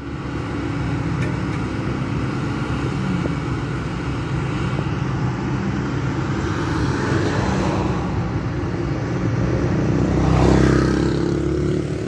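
Diesel engine of a road roller compacting fresh asphalt, running steadily and swelling louder around ten seconds in as it draws closer.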